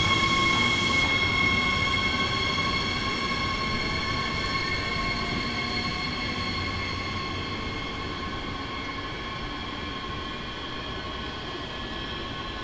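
Siemens Desiro HC electric multiple unit pulling away, its traction equipment giving a steady high electric whine in several tones over a low rumble, fading as the train draws off.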